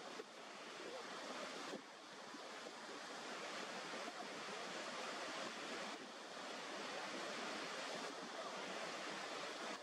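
Steady rush of a waterfall, water pouring over the brink in a constant roar of white noise, dipping briefly in level a couple of times.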